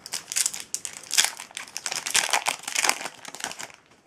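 Foil booster pack wrapper crinkling as it is torn open and handled, a dense run of crackling that dies away just before the end.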